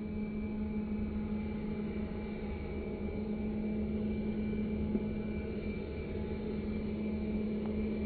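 Slowed-down sound of the electric ducted fans on an Airbus A330-600 RC model airliner, running as a steady, low jet-like hum over a rumble, growing slightly louder.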